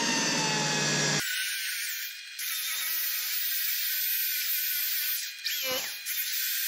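Electric drill spinning a cloth buffing wheel against an aluminium engine cover with white finishing compound, the last polishing stage. It makes a steady motor whine, broken a few times by short gaps, and winds up quickly near the end.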